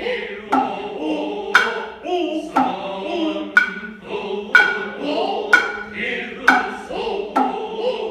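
Noh chorus (jiutai) chanting in unison to the Noh hand drums, kotsuzumi and ōtsuzumi. The drums give sharp, cracking strikes about once a second over the chant.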